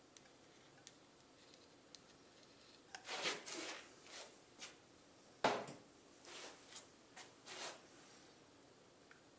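Light clicks, then short scrapes and rustles of a small gasketed metal cover plate being handled and fitted onto an aluminium Honda CBR1000F crankcase, with one sharp knock about halfway through.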